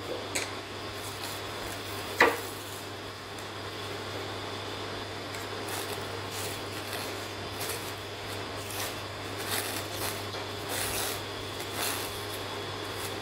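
Plastic cling film crinkling and tearing as it is peeled by hand off a frozen beef tenderloin roll, in short scratchy rustles that come thickest in the second half. A single sharp knock sounds about two seconds in, over a steady background hum.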